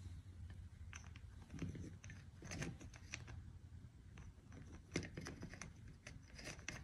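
Faint, irregular clicks and knocks of a cockatoo's beak handling the wooden rings of a ring-stacking toy, lifting a ring and setting it onto a peg.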